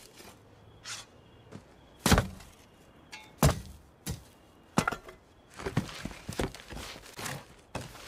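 Spade digging into grave soil: a run of sharp thunks, some trailing into a short scrape, at uneven intervals of roughly a second.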